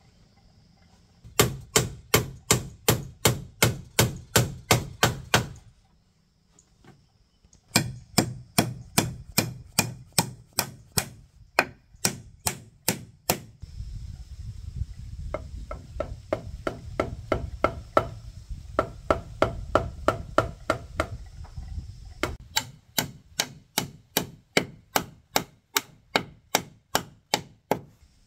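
Hammer blows on a wooden railing post, about three a second, in runs separated by short pauses. Through the middle stretch the strikes are softer, over a low rumble.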